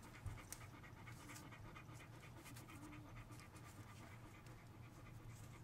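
Great Dane panting faintly, with a light click about a quarter second in.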